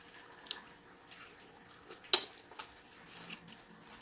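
Close-up eating sounds from a person eating oxtail by hand: soft mouth smacks and sucking on fingers, with a few short clicks, the sharpest about two seconds in.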